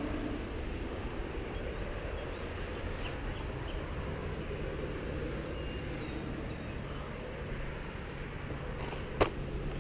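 Steady low outdoor background hum and rustle, with a single sharp click about nine seconds in.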